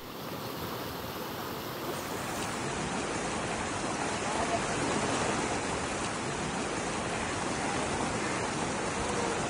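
Fast-flowing stream rushing over rocks: a steady, even sound of running water that grows slightly louder about two seconds in.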